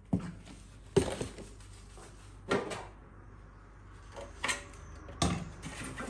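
About five separate knocks and clunks of hard plastic as a dish soap bottle and a plastic fridge drawer are handled over a stainless steel sink. The loudest comes about a second in.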